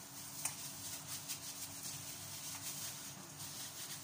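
Wet squishing and crinkling of raw chicken legs being kneaded in marinade by hands in plastic gloves, with an irregular crackle and one sharper click about half a second in, over a faint steady low hum.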